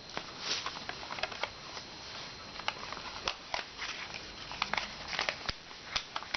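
A sheet of paper being folded and creased by hand: irregular crinkles and sharp crease snaps over a steady hiss.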